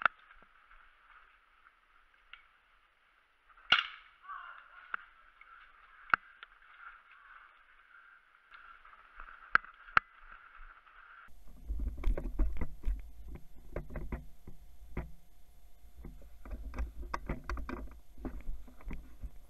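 Scattered single sharp clicks over a steady hiss. About eleven seconds in the sound changes abruptly to a low rumble with clusters of rapid clicks.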